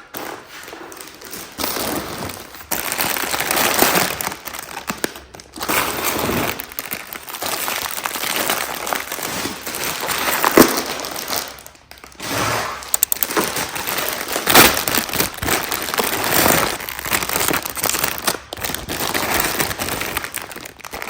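Plastic instant-noodle packaging crinkling and rustling as packs are handled and opened, loud and continuous with brief pauses.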